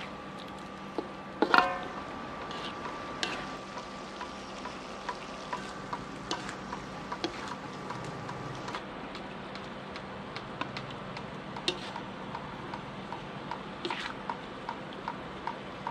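Metal spatula scraping and tapping against a wok while stir-frying Chinese chives, shrimp and tofu, with scattered clicks over a steady sizzle.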